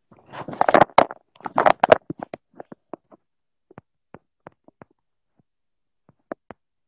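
Phone handling noise close to the microphone: two bursts of rustling and knocking in the first two seconds, then a scattering of short clicks and taps that thin out.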